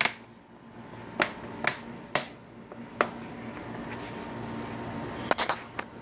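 Plastic clips of an Asus TP500L laptop's bottom cover snapping into place as the cover is pressed down. About seven sharp clicks come at uneven intervals, two of them close together near the end.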